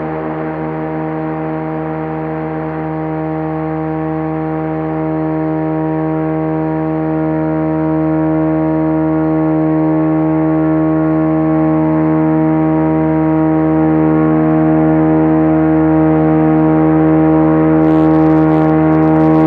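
Mars helicopter test rotor with long blades spinning steadily on a test stand: a constant hum with many overtones that slowly grows louder. A few faint clicks near the end.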